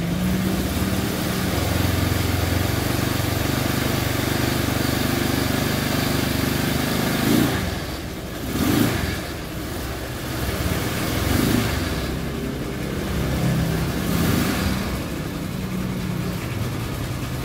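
Single-cylinder four-stroke engine of a carbureted Honda Vario scooter fitted with a Honda Supra carburetor, running cold just after a hard start. It runs unevenly, with several short throttle blips in the second half, held on the gas because the fuel may not yet have come through.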